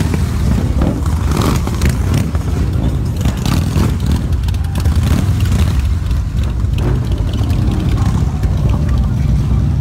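Engines of several large touring motorcycles running as they ride slowly past, one after another, with a steady low rumble throughout.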